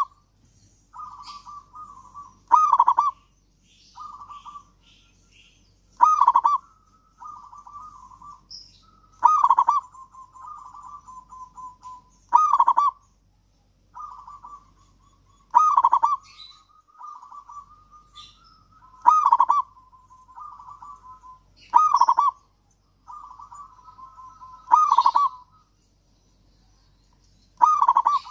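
Zebra dove (perkutut) cooing: a loud call about every three seconds, with softer, quick stuttering notes in between.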